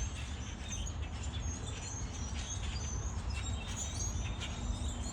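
A flock of small birds calling, many short high chirps overlapping without pause, over a steady low rumble.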